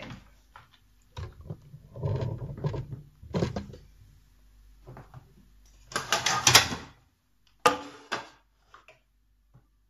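Handling noises on a tabletop as a plastic tray of mung bean sprouts and a bowl are moved about: a series of short scrapes, rustles and knocks, loudest about six to seven seconds in, trailing off into a few light clicks.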